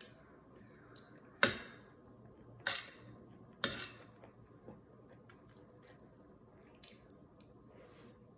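Metal spoon and fork clinking and scraping against a ceramic plate: three sharp clinks about a second apart, then lighter taps.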